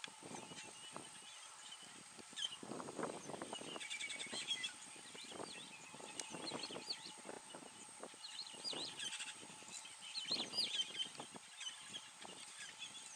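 Small birds chirping and twittering in clusters of quick calls, over scattered crackling rustles and a faint steady high tone.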